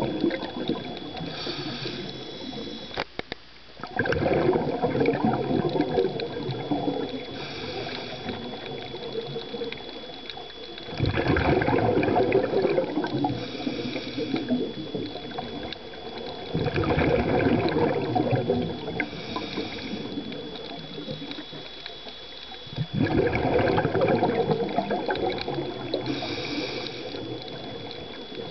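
A diver's scuba regulator breathing underwater: a short hiss of inhalation, then a loud rush of exhaled bubbles lasting a couple of seconds, repeating about every six seconds. A faint steady high whine runs underneath.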